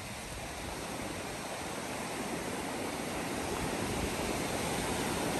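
Surf of strong waves breaking and washing up a sandy beach, a steady rushing that grows slowly louder.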